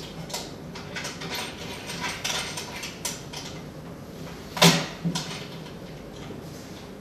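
Hands handling and fitting machine parts: scattered small clicks and rustles, with one sharper, louder knock about two-thirds of the way through.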